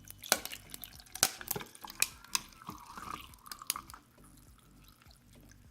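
Ice cubes clinking into a cup, a dozen or so sharp clicks over about four seconds, with tea poured over them about halfway through.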